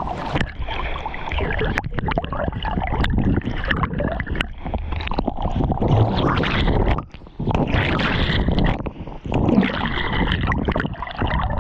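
Water rushing, splashing and gurgling close to the microphone, loud, dropping away briefly twice in the second half.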